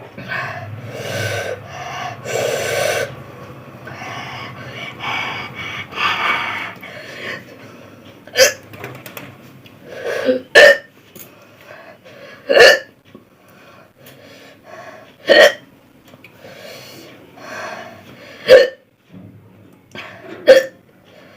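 A person hiccuping repeatedly, with short, sharp hiccups every two to three seconds in the second half.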